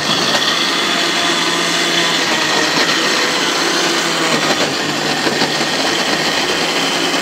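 Sonashi countertop blender switched on and running steadily at speed, puréeing cooked vegetables in broth.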